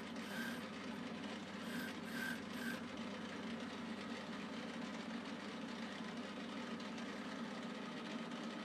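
Metal lathe running steadily while a boring bar cuts the 8-degree taper of the ER32 collet seat inside the bore. A few short high squeaks come in the first three seconds as the tool is fed in and out on a compound slide that the machinist says has some audible play.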